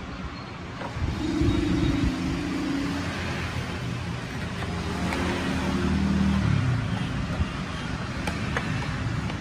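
A motor vehicle's engine passes by over steady street traffic noise, its pitch dropping away about two-thirds of the way through.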